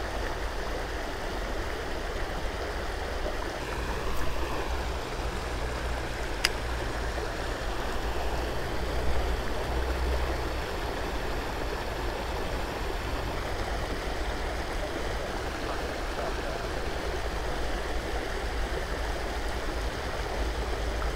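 River water flowing over a shallow, rippled stretch: a steady rushing. A single sharp click sounds about six seconds in.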